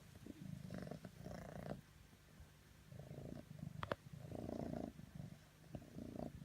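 Domestic cat purring, the purr coming in pulses that rise and fall with its breaths, with one short sharp click about four seconds in.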